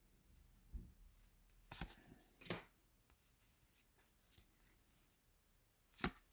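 Trading cards being handled and flipped through: a few short, faint flicks and rustles of card stock, spaced irregularly, the sharpest near the end.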